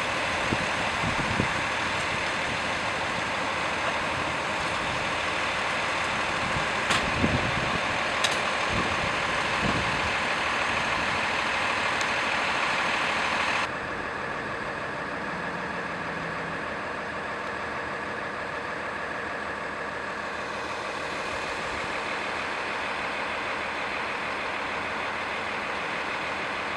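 Steady hum of idling vehicle engines, with a couple of sharp clicks about seven and eight seconds in. The hum drops quieter suddenly about halfway through.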